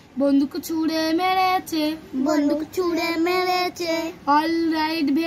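A young girl chanting a Bengali nursery rhyme in a sing-song voice, phrase by phrase with short pauses.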